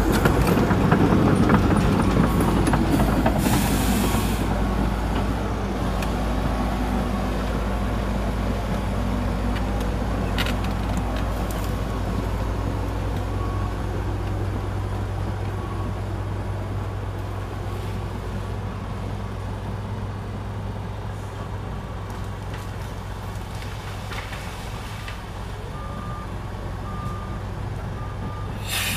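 Heavy diesel engine of a Komatsu D61EX bulldozer running steadily and slowly growing quieter, with a brief hiss about four seconds in. Near the end a reverse alarm starts beeping at an even pace.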